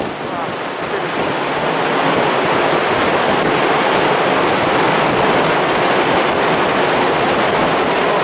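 Strong wind buffeting the microphone on the open deck of a ferry under way: a loud, steady rushing with no breaks.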